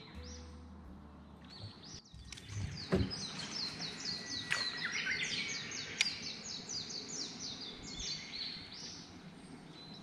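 Japanese bush warbler singing: a rapid run of short, repeated high notes lasting several seconds. A thump comes about three seconds in and a sharp click about six seconds in.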